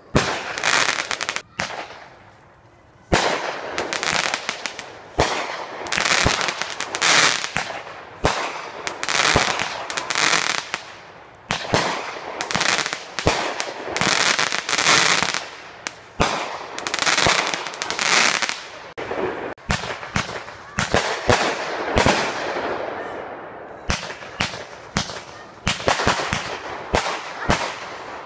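Aerial fireworks going off in a rapid barrage of sharp bangs, one after another, with a short lull about two seconds in.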